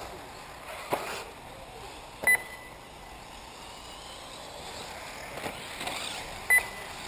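Two short, high electronic beeps about four seconds apart, the loudest sounds, typical of an RC race's lap-timing system as buggies cross the line, over the faint running of 1/8-scale electric off-road buggies, with a knock about a second in.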